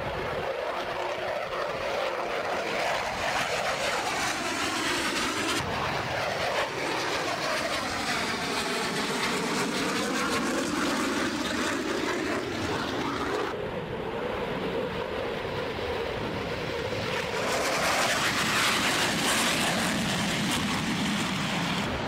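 Fighter jets flying past: a continuous rushing jet-engine noise that sweeps in tone as each aircraft passes. Several passes are cut together, and the loudest comes in the last few seconds.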